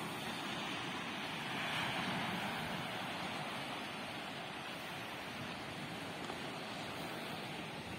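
Small sea waves washing onto a rocky, pebbly shore: a steady rush of surf that swells briefly about two seconds in.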